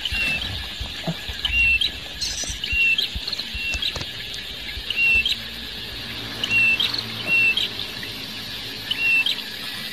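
Short high chirping calls repeat at uneven spacing, roughly once a second, each rising slightly at its end, over a steady high insect-like hiss. A few low thumps and rustles of handling come in the first second or two.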